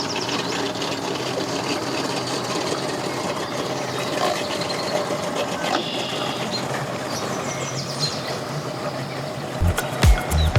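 A 150-horsepower outboard motor running steadily at low speed, a constant mechanical hum. Near the end, music with a heavy bass beat comes in.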